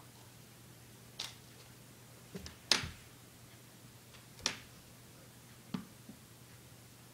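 Short, sharp knocks and taps, about six spread over several seconds, the loudest a little under three seconds in, as a Samoyed puppy plays with a tennis ball and paws at things around a table leg.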